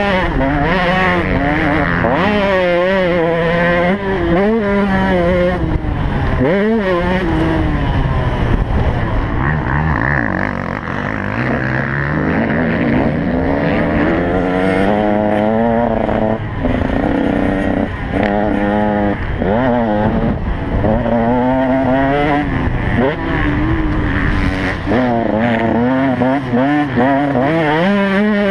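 2015 KTM 125 single-cylinder two-stroke dirt bike engine revving hard under load, its pitch climbing and dropping every second or two as the rider shifts and rolls the throttle on and off. About ten seconds in it briefly eases off before pulling again.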